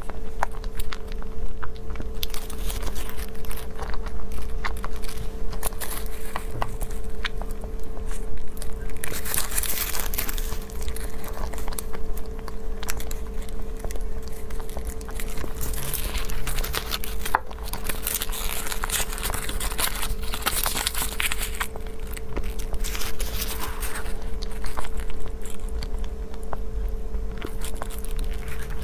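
Close-miked eating of a soft white bun: biting and chewing, with crinkling and tearing of a plastic bag around the bun in two louder stretches, over a steady hum.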